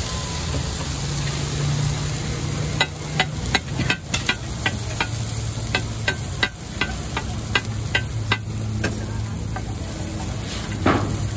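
A metal spatula knocking and clinking against a flat iron dosa griddle: an irregular run of sharp knocks about three a second that starts a few seconds in and thins out, with one louder knock near the end, over the hiss of the hot griddle.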